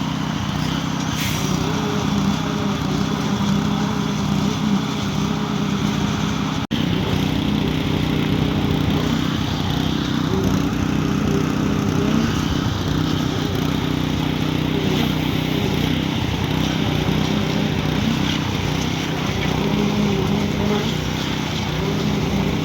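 Heavy diesel engine of a truck-mounted concrete pump running steadily under load while it pumps concrete, with a momentary dropout about seven seconds in.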